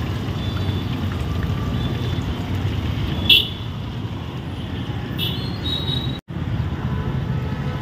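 Steady low rumble of roadside traffic, with a brief sharp sound about three seconds in.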